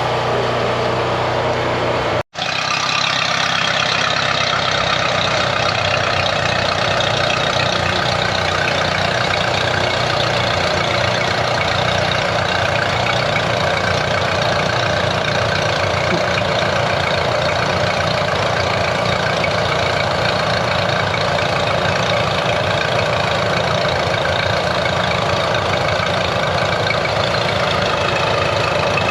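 An engine running steadily at idle, with a steady hiss over it. It cuts out completely for a split second about two seconds in, then carries on unchanged.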